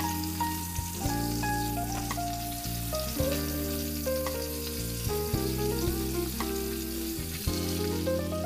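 Katla fish steaks sizzling steadily in hot oil in a kadai while a spatula turns them over. Soft background music with held notes plays underneath.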